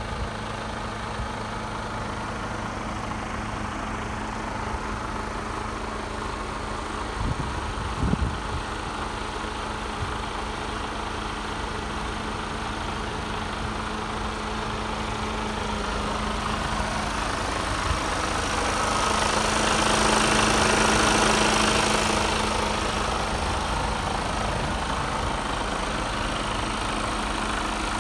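Mercedes Actros 2445's diesel engine idling steadily, a 12.8-litre straight-six. The sound grows louder for a few seconds about two-thirds of the way through, then settles again.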